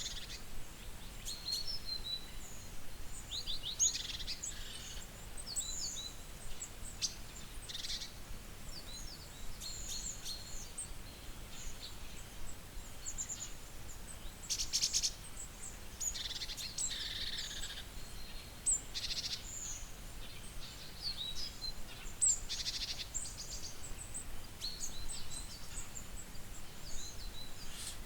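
Wild birds chirping and calling, with many short, high notes and a few quick rattling runs of repeated notes scattered throughout.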